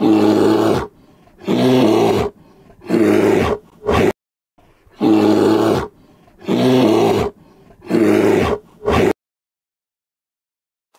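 A large animal roaring: three roars of under a second each and a short grunt, and the same run again about five seconds later.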